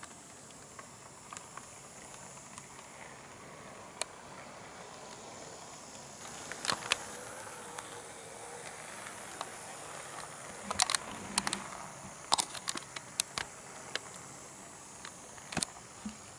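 HO-gauge model of an EF81 electric locomotive running on sectional track: a faint steady hiss of the motor and wheels, with scattered sharp clicks, bunched in quick clusters near the middle and again later, as the wheels cross rail joints.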